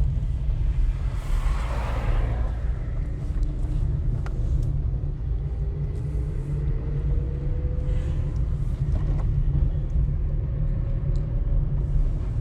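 Car driving at low speed: a steady low rumble of engine and road. A brief whoosh comes about two seconds in, and a faint whine rises slowly in pitch in the middle.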